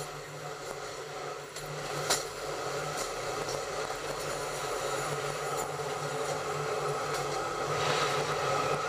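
Train running along the track, a steady rumble and rattle of wheels on rails with a low pulsing hum. A sharp wheel click comes about two seconds in, and the running noise grows louder near the end.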